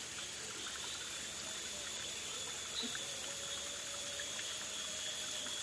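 Steady trickle and flow of water in a shallow rocky stream, with a faint steady high tone running above it.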